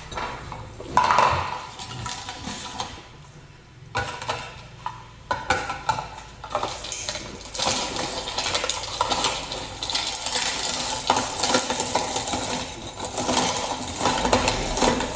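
Plastic and metal parts of a manual meat grinder clattering and clinking as it is handled: a few separate knocks at first, then a busy, continuous rattle from about seven seconds in.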